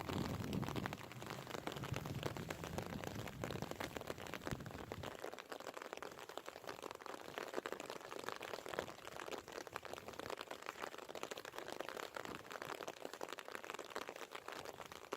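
Rain pattering, a dense fine crackle of drops. A low rumble underneath fades out about five seconds in.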